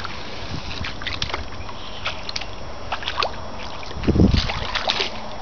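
Shallow water splashing and sloshing in scattered small splashes, with one louder, deeper splash about four seconds in.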